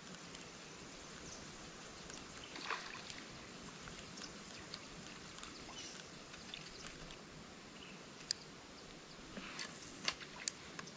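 Faint creek-side ambience, a steady low hiss of water and outdoor air, broken by a few short sharp clicks and ticks: one about two and a half seconds in, a sharp one past the middle, and a few more near the end.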